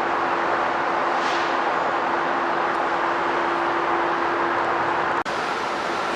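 Steady rushing noise of a train running past, with a steady hum under it; it breaks off abruptly for a moment about five seconds in.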